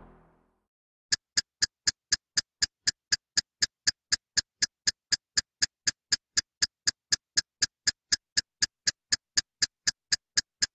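Clock ticking: sharp, even ticks about four a second, starting about a second in as music dies away.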